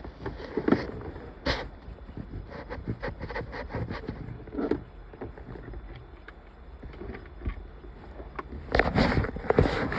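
Scattered light clicks and knocks of parts and tools being handled, with a louder stretch of knocking and rustling near the end.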